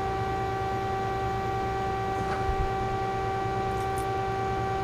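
Steady machine hum, one clear tone with overtones, from running shop machinery, with a couple of faint clicks as a threaded plug is turned by hand.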